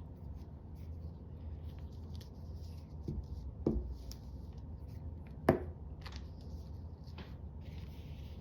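Craft supplies handled on a tabletop: a few short knocks and clicks, the loudest about five and a half seconds in, over a steady low hum.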